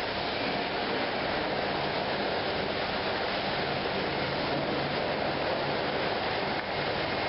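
Steady industrial machinery noise in a concrete block plant: an even rushing noise with a faint low hum underneath.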